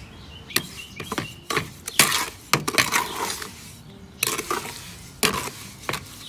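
Metal hand trowel scraping and stirring wet concrete mix in a plastic bucket, in irregular strokes about every half second to a second.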